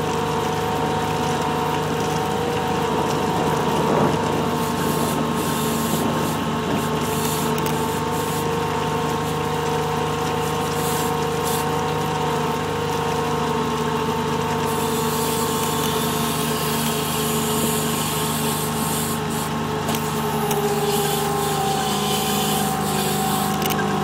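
Kubota RTV 1140 CPX's three-cylinder diesel engine running steadily as the tracked vehicle drives through deep snow, with a steady whine over a noisy rush. The pitch drops slightly about twenty seconds in.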